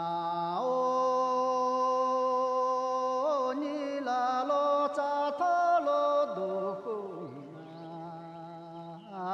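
A slow song, sung in long held notes, the voice stepping and sliding between pitches with a slight waver.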